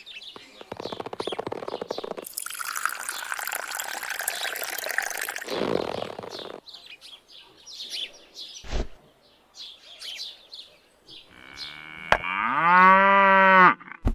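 Water trickling and splashing from a small tap into a bowl for a few seconds, followed by light clicks and taps. Near the end comes one long, loud cow moo.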